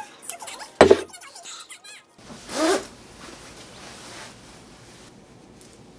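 Ceramic dishes and chopsticks clink, with one hard knock as a bowl is set down on a table. Then a zip is pulled on a nylon puffer jacket, with the jacket's fabric rustling for about a second after it.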